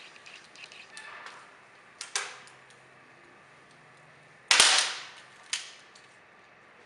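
Fiberglass pool fence pole cracking sharply as it bends under a rope pull: small ticks at first, a sharp snap about two seconds in, the loudest crack about four and a half seconds in, and another about a second later. These are the sounds of the fiberglass beginning to splinter under load.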